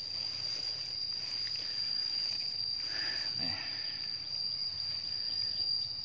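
Insects trilling in one steady, unbroken high-pitched tone.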